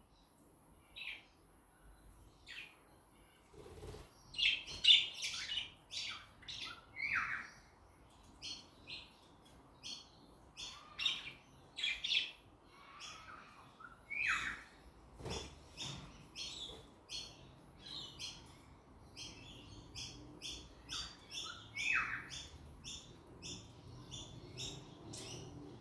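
Several budgerigars chirping and calling: scattered short chirps, a few louder calls that slide down in pitch, and about three-quarters of the way through a quick run of short, even notes. A light knock sounds just past halfway.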